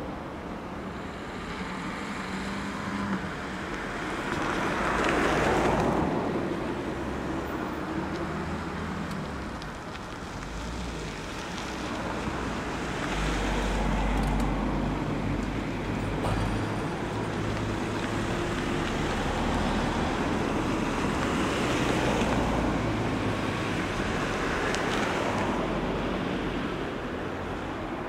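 Vehicles passing on a slushy, snow-covered street, their tyre hiss swelling and fading several times, with the low rumble of a diesel ambulance engine as the ambulance moves off. No siren is sounding.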